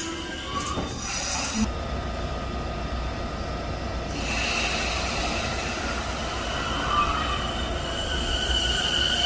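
Toei 10-300 series electric train moving slowly along a platform: a steady high-pitched wheel squeal over a low rumble, the squeal fading for a moment and returning about four seconds in.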